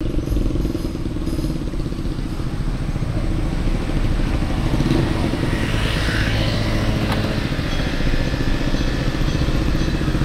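Street traffic: vehicle engines running steadily, swelling briefly about halfway through as something passes close by.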